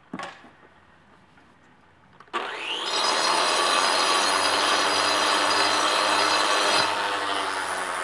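Handheld angle grinder cutting a stone block. About two seconds in it spins up with a quick rising whine, then grinds through the stone with a loud, steady, high-pitched whine. Near the end the high edge drops out and it carries on more quietly as it comes off the cut. A short knock sounds just at the start.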